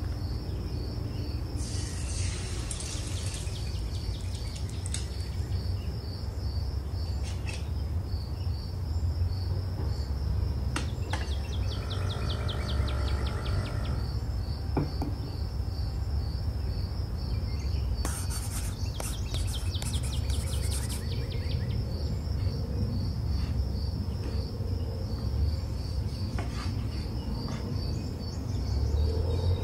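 A steady, even series of short high chirps like a cricket's, about three a second, over a low continuous hum, with a few faint clicks.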